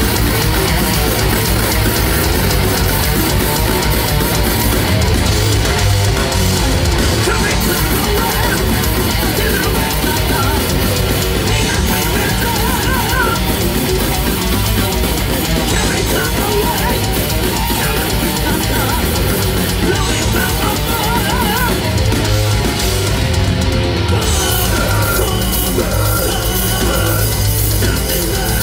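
Heavy metal band playing live at full volume: distorted electric guitars, bass and a driving drum kit.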